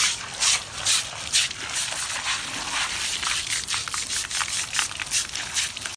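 Water from a garden hose spraying and splashing on an elephant's foot and the wet concrete floor, with repeated scrubbing strokes of a brush on the foot's sole.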